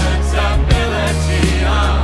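Band music from a musical-theatre cast recording, with a steady drum beat about every 0.7 seconds over sustained bass and chords.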